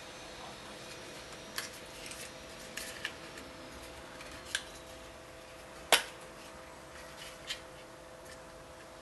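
Plastic parts of a Tommee Tippee Explora straw cup lid being fitted together by hand as the straw is threaded through: a handful of light clicks and rubbing, with one louder click about six seconds in as a piece snaps into place.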